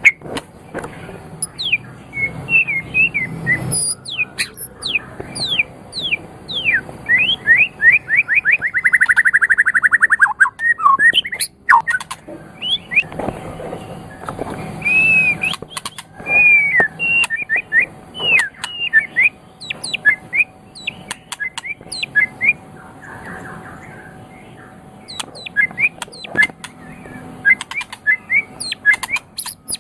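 Murai songbird (a Copsychus magpie-robin/shama type) singing a fast, varied song of quick whistled sweeping notes, with a rapid trill that falls in pitch about eight to ten seconds in.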